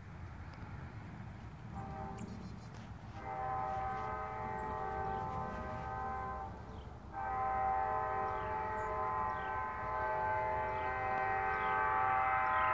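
Multi-chime air horn of L&N GP7 #405, a diesel locomotive approaching with an excursion train, sounding a chord: a short faint blast about two seconds in, a long blast, then after a brief break another long blast that keeps on, growing louder, over a low rumble.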